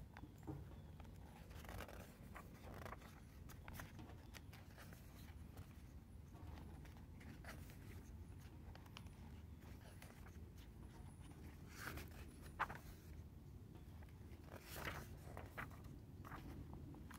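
Faint rustling and soft flicks of paper as the pages of an album photo book are turned by hand, a few separate page turns, the sharpest about twelve seconds in.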